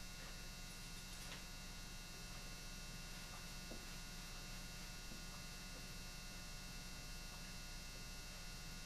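Steady electrical mains hum, with a few faint small clicks as a screwdriver turns a small screw into the revolver's frame.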